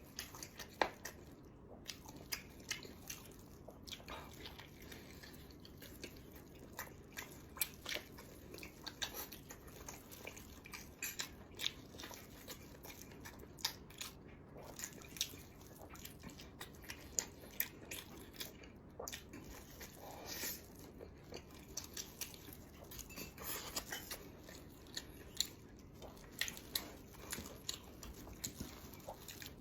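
Close-up eating sounds: a person chewing and biting, with many small irregular wet clicks and smacks from the mouth.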